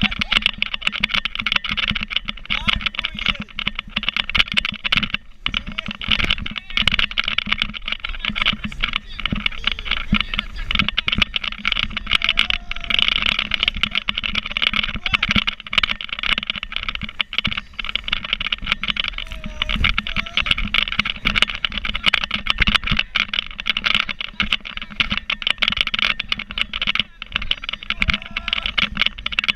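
Dense, continuous crackling and rushing of wind and water spray buffeting the microphone of a camera on a fast-towed inflatable sofa ride.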